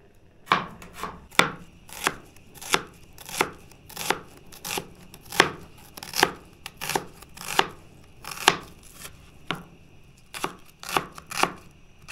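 Knife chopping vegetables, sharp separate strokes at an uneven pace of about one and a half a second.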